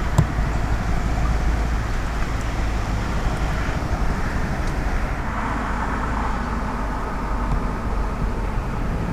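CH-47 Chinook twin-turbine tandem-rotor helicopter flying: a steady, heavy low rumble of rotors and engines that grows brighter a little past the middle.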